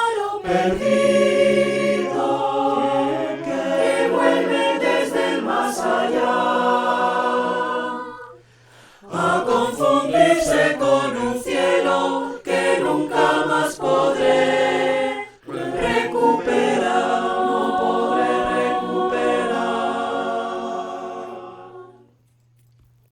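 Five-part mixed a cappella choir singing, with two brief pauses, the last chord held and fading away near the end.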